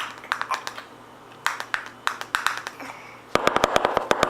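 Light, irregular taps and clicks, then a quick run of about ten clicks a second for the last second.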